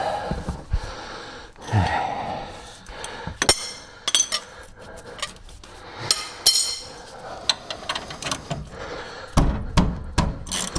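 Steel hand tools clinking and knocking against the brake caliper bracket, with several sharp, ringing clinks a few seconds apart, as a seized, rust-bound caliper bracket bolt is worked on.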